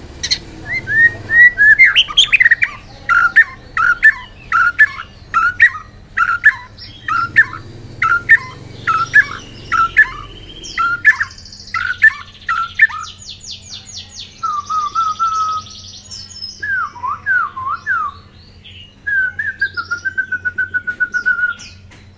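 White-rumped shama singing loudly: a long run of repeated whistled notes, about two a second, then varied phrases and rapid trills toward the end.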